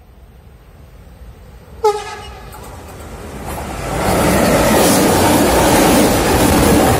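A ČD Cargo Siemens Vectron electric locomotive gives one short horn blast about two seconds in. From about three and a half seconds it and its container freight train pass close by, and the steady rumble of the wagons on the rails builds quickly to a loud level.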